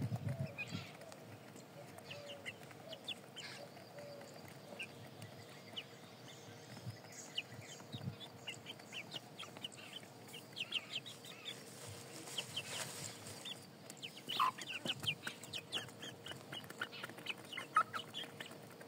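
Hens pecking grain off a concrete floor: many quick, light taps of beaks on the ground, with a few soft clucks in the first few seconds.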